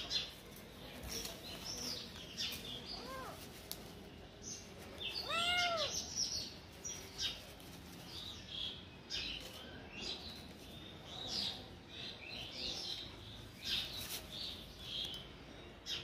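Kitten meowing twice: a faint short meow about three seconds in and a louder, longer meow that rises and falls in pitch near the middle. Frequent short, high bird chirps sound throughout.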